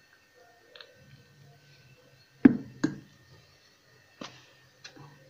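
Glassware knocking against a tabletop: two sharp knocks about half a second apart, then two fainter clicks over a faint low hum.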